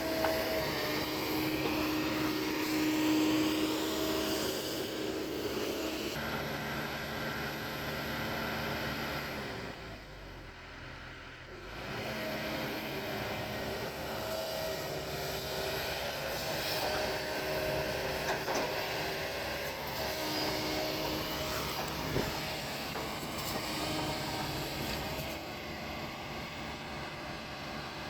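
Kobelco hydraulic excavator's diesel engine running as the machine works, a steady engine drone with held tones above it. The sound changes abruptly about six seconds in and drops for a couple of seconds about ten seconds in.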